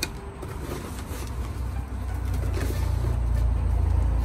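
Gloved hands rubbing salt into tilapia pieces in a plastic tub, with faint scrapes and rustles. Under this runs a low rumble that swells from about halfway through and is the loudest sound.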